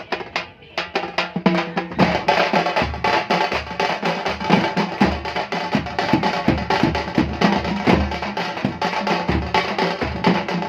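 Chennai kuthu drum group playing: a few sparse, separate strokes, then about two seconds in the whole group comes in with a fast, dense beat over regular heavy low thumps.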